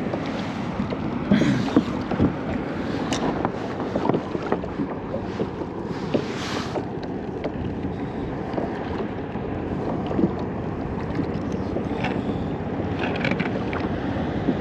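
Water lapping against a kayak hull, with wind on the microphone and scattered knocks and clicks of gear being handled on board.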